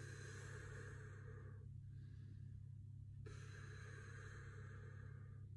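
A man breathing hard from exercise: two long, faint breaths of about two seconds each, the second beginning about three seconds in, over a steady low hum.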